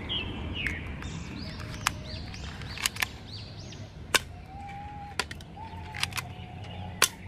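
Toy pistol loaded with a plastic magazine and fired at plastic bowling pins, giving a series of sharp snapping clicks from about two seconds in, spaced about a second or less apart. Birds chirp faintly in the background.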